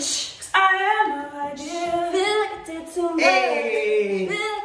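A woman singing unaccompanied in short melodic phrases, with no instruments behind her.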